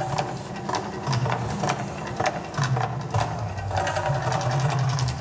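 Percussive soundtrack of an outdoor volcano show over loudspeakers: repeated sharp drum strikes over a low rumble that swells and fades about every second and a half, with crowd chatter.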